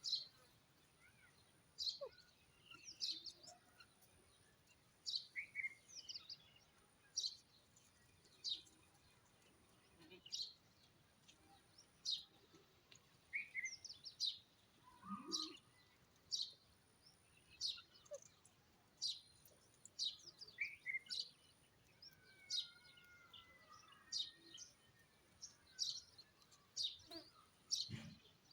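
Grey francolin calling: short, sharp, high-pitched call notes repeated about once a second, with a few lower notes among them.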